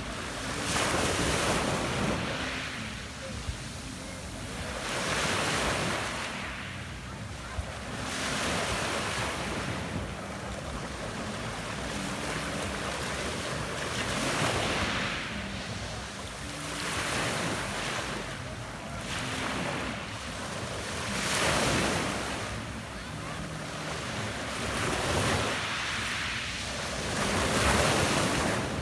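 Adriatic sea waves breaking and washing up a pebble beach, the hiss of each wave swelling and falling back every three to four seconds, with wind buffeting the microphone.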